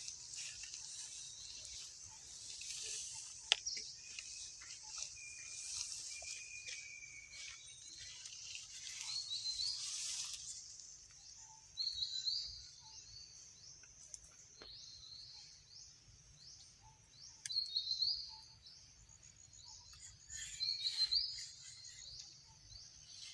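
Outdoor ambience: a high, steady insect hiss, with several bursts of quick, short, high chirping calls in the second half.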